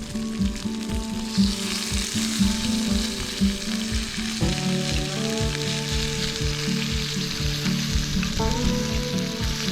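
Food frying in a pan, a steady sizzle that grows louder about a second in, over background music with a steady beat.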